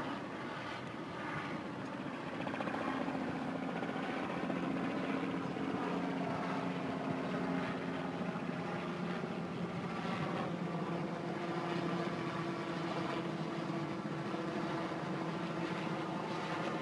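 Helicopter in flight: a steady drone of turbine and rotor, with a hum that moves up in pitch a little past the middle.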